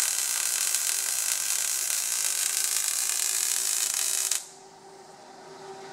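MAG (gas metal arc) welding arc crackling and hissing steadily during a vertical-up weld pass on thick steel plate, then cutting off abruptly about four and a half seconds in. A faint steady hum carries on underneath.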